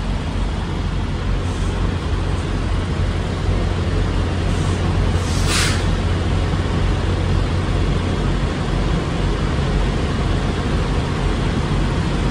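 Diesel running from a pump nozzle into a reefer trailer's fuel tank: a steady rush over a low, steady engine hum, with one short hiss about halfway through.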